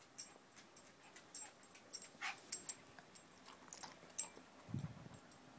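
A Shih Tzu hiccuping: a run of short, sharp hics at irregular intervals, with one brief low huff near the end.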